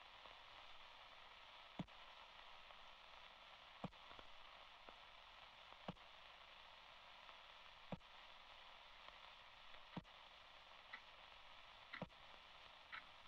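Faint, steady static hiss with a sharp tick about every two seconds; a few short, high chirps come in near the end.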